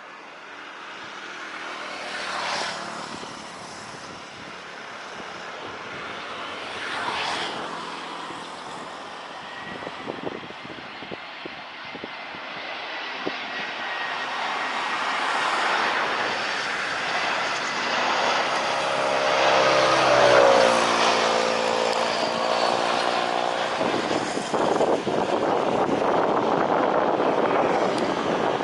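Citilink airliner's engines at takeoff power, a broad roar that swells steadily and is loudest near the end. Through it runs a pitched whine that slowly falls and bends in pitch.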